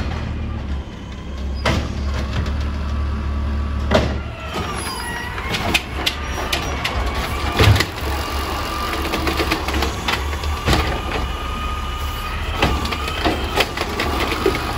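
Autocar refuse truck with an Amrep body working at the curb: its diesel engine runs with a steady low rumble under repeated sharp clanks and bangs. From about five seconds in a steady whine rises over the engine and holds.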